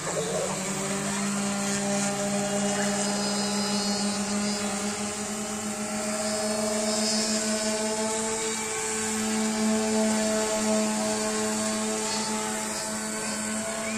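Electric motors and propellers of a homemade multirotor RC flying boat lifting off and hovering: a steady buzzing hum that rises as it takes off, then wavers slightly up and down in pitch as it holds its hover.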